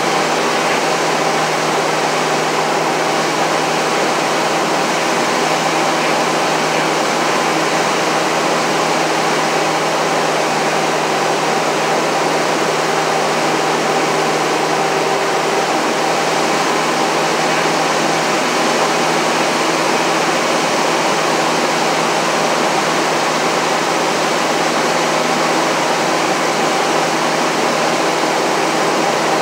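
Steady drone of a light airplane's piston engine and propeller, mixed with rushing airflow, heard inside the cockpit in flight. It holds one constant pitch and loudness, with no change in power.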